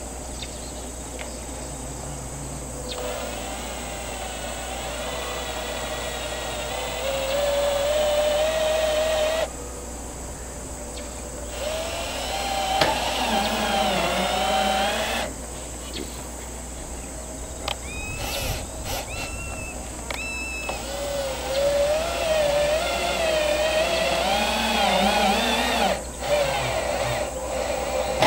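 Power drill driving roofing screws through metal transition flashing into the roof ribs. The motor whine wavers and climbs in pitch under load in three long runs of several seconds, with a few short spurts between them.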